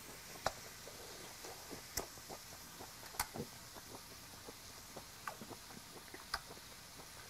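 Quiet, close chewing of tender grilled beef: soft wet mouth clicks and smacks, with a few sharper clicks spread through.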